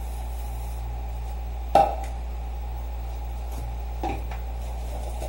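Metal pots and dishes knocking together as they are handled at a kitchen sink: one sharp clank a little under two seconds in and a lighter knock about four seconds in, over a steady low hum.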